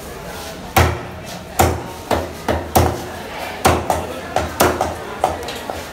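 Heavy fish-cutting knife chopping through a great barracuda onto a thick plastic cutting block: about ten hard, irregularly spaced strokes, the first coming just under a second in.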